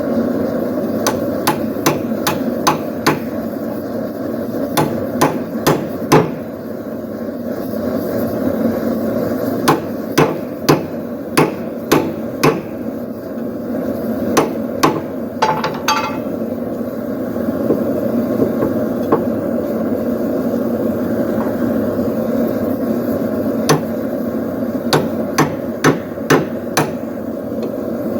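Blacksmith's hand hammer striking hot steel, in bursts of quick blows with pauses between. The blows drive a splitting tool into the poleaxe head to open up its prongs. Under the blows there is a steady rushing noise, and one brief metallic ring rises about halfway through.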